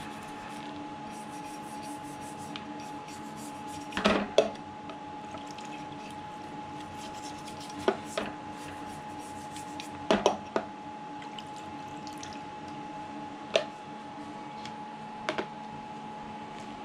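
Toothbrush scrubbing uncured resin off a resin 3D printer's build plate over a plastic tub of isopropyl alcohol, with liquid sounds and a few sharp knocks of the plate or brush against the tub, several in close pairs, over a steady background hum.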